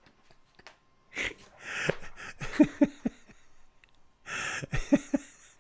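A man laughing, mostly in breathy huffs with a few short bits of voice, in two bouts.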